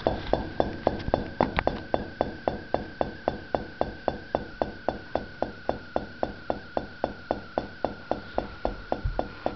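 Whirlpool refrigerator compressor clunking in a steady rhythm, about four knocks a second, over a steady high tone. The compressor is wobbling on its mounting and knocking, which the owner suspects comes from a broken mounting spring.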